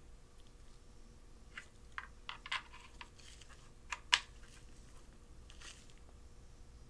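A few scattered sharp clicks and taps of hard plastic objects being handled, the loudest a single crisp click about four seconds in.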